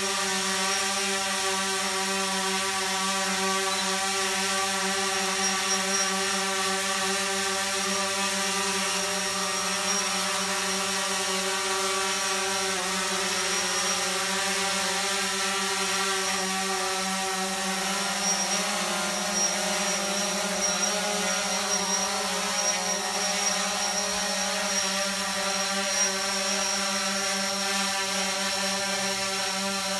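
DJI Phantom 4 Pro quadcopter's propellers whining steadily as it hovers, the pitch wavering slightly about two-thirds of the way through.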